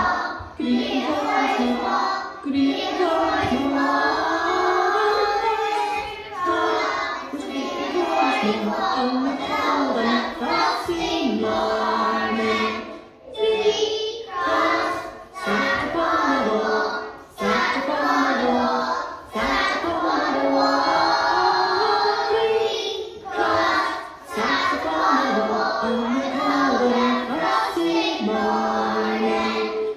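A group of young children singing together, in phrases separated by short breaks.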